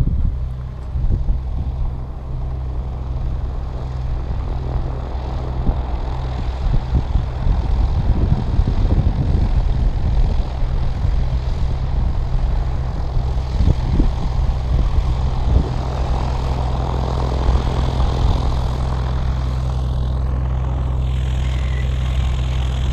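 Aircraft engine running steadily with a low, even drone. Rough wind buffeting on the microphone comes through in the first few seconds.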